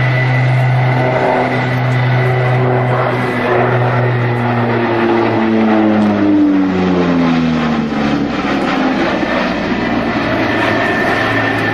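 Grumman E-2 Hawkeye's twin Allison T56 turboprops droning in a low pass, with a steady high whine over the propeller hum. The pitch falls from about four to nine seconds in as the aircraft passes overhead and moves away.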